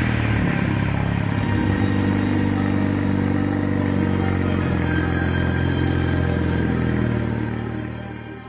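Mazda RX-7 FD3S's street-ported 13B twin-rotor engine running at a steady pitch that steps slightly a couple of times, then fading out near the end.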